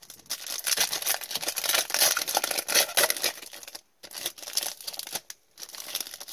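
Wrapper of a hockey card pack being torn open and crinkled by hand: dense crackling for about three and a half seconds, a brief pause, then lighter scattered crinkles.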